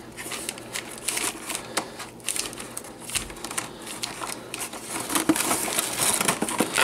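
Cardboard toy packaging being handled: a run of rustles, scrapes and small clicks as the box flaps and insert tray are moved and the wire ties are worked, busier and louder in the last couple of seconds.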